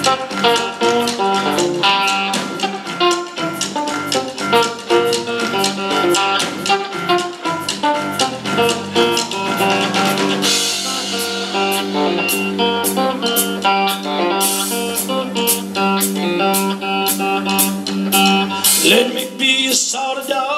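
Live blues band playing an instrumental stretch between vocal lines: electric guitar over drum kit, bass and keyboards. The cymbals get louder about halfway through.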